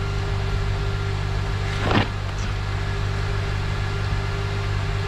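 2007 Honda Accord's 2.4-litre four-cylinder engine idling steadily on a cold fast idle of about 1500 rpm, running pretty good after its misfire repair. A brief noise stands out about two seconds in.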